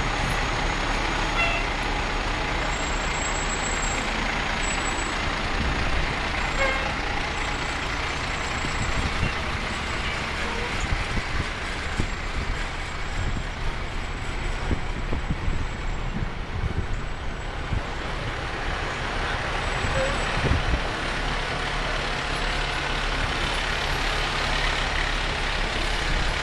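Fire engines' diesel engines running as the trucks roll slowly past one after another: a steady truck rumble with a few brief knocks.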